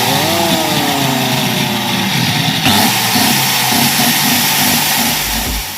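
A loud motor runs with a rushing hiss across all pitches, starting suddenly. A whine falls in pitch over the first two seconds, and the sound eases off near the end.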